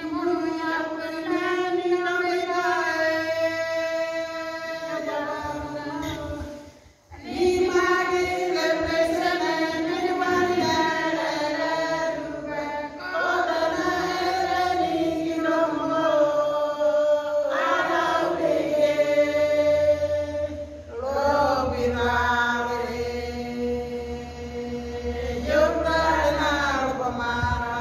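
A group of women singing together, holding long notes, with a short break about seven seconds in.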